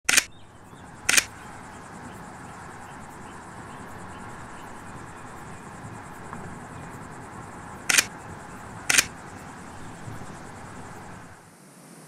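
Steady rumbling road noise from inside a vehicle driving a dirt track. Four sharp, loud clicks cut through it in two pairs a second apart, one pair at the start and one about eight seconds in.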